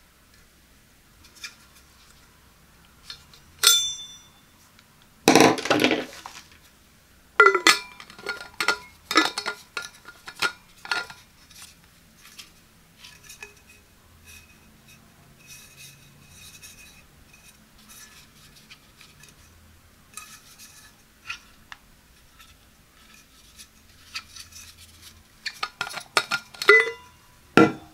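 Close-up handling of a stainless steel water bottle and its plastic straw lid: taps and clinks of metal and plastic, a brief metallic ring a few seconds in, a scraping rub around five to six seconds in, then runs of sharp clicks as the lid is fitted and twisted, loudest near the end.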